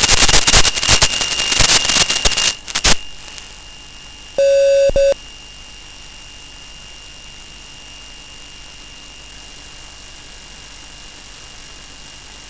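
Onboard audio of an FPV model airplane landing in grass: loud rushing, crackling noise with sharp clicks that cuts off about three seconds in as the plane comes to a stop. After that a steady hiss with a faint high whine remains, broken about four and a half seconds in by a short double beep.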